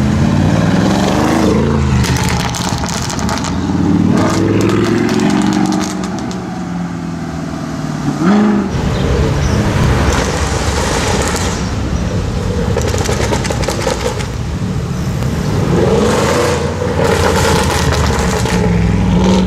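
Audi RS6 C7's twin-turbo V8 with a Capristo exhaust, revved several times, with bursts of sharp exhaust crackles between the revs as the throttle closes.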